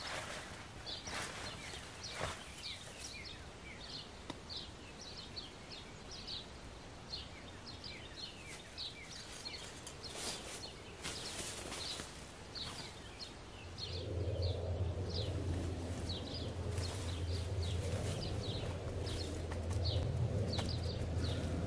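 Small woodland birds calling all through, with short, high, falling chirps several times a second, over rustling and steps on the forest floor. About halfway through a steady low rumble comes in and the whole sound gets louder.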